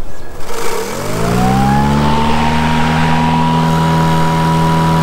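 Toro 60V battery-powered walk-behind mower's electric motor starting up. The blade spins up with a rising whine that levels off to a steady pitch about two seconds in, then the motor runs steadily at full speed.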